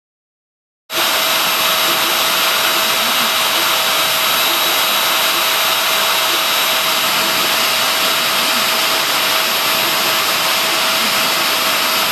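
Kress 800 router spindle on a Shapeoko 2 CNC machine running at full speed as its thin bit cuts into copper-clad circuit board: a loud, steady whine over a rushing hiss that starts abruptly about a second in.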